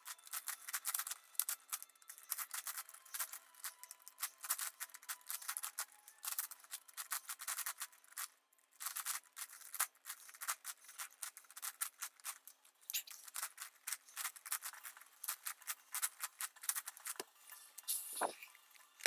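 Plastic 11x11x11 puzzle cube being turned fast by hand: its layers click and rattle in a dense, irregular run of sharp clicks, with a brief pause about eight and a half seconds in and a couple of duller knocks near the end.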